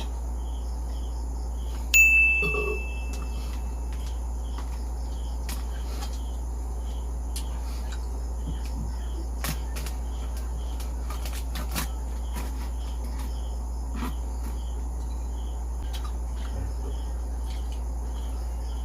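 Crickets chirping steadily, about two chirps a second, over a low steady hum. About two seconds in, a single sharp clink of tableware rings out and fades within a second, followed later by a few faint scattered clicks.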